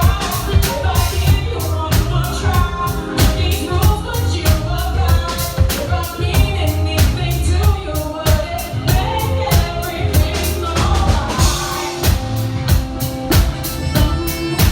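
Live R&B band playing with a steady drum-kit beat and bass, a singer's voice over it, and a cymbal crash near the middle.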